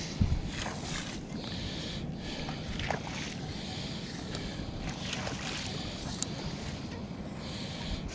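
Steady wind rumbling on the microphone, with one sharp thump just after the start and a few faint ticks later.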